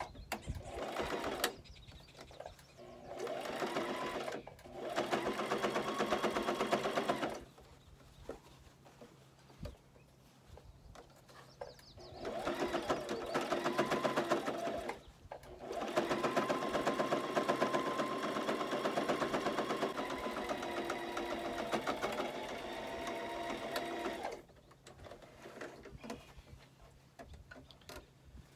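Brother electric sewing machine stitching in several runs of a few seconds each with short pauses between, the longest run about eight seconds near the end; it is sewing over a cut seam to reinforce it.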